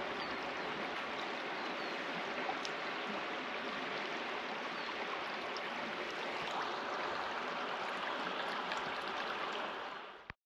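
River water rushing and babbling steadily over stones in a shallow stretch of the Nemunas, cutting off suddenly near the end.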